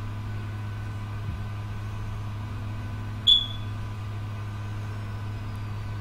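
Steady low hum of a car's cabin while driving, with one short, high-pitched ping a little over three seconds in.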